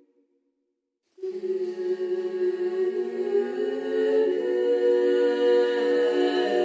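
Background music: a cappella choral chant, several voices holding long sustained chords. It begins about a second in, after a moment of silence.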